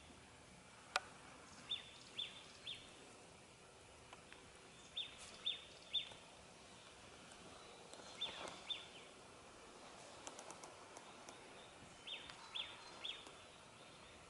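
Songbird calling in a repeated phrase of three short, high notes about half a second apart, given three times, with a few fainter calls in between, over faint outdoor hiss. A single sharp click comes about a second in.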